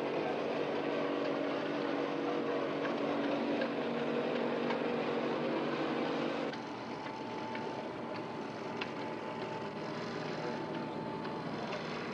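A steady motor drone with hum lines running through it. About six and a half seconds in it drops abruptly in level and a thin, higher steady tone carries on.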